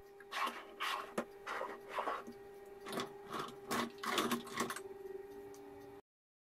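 Handling sounds on a benchtop jointer: a series of irregular knocks and rattles, about two a second, over a steady hum.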